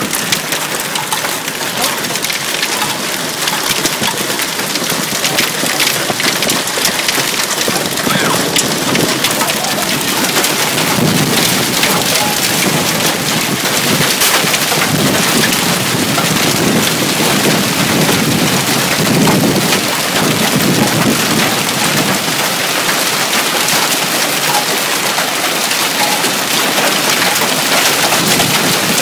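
Hail pelting down in a heavy storm: a loud, steady clatter of countless small impacts, with a deeper rumble that comes and goes in the middle stretch.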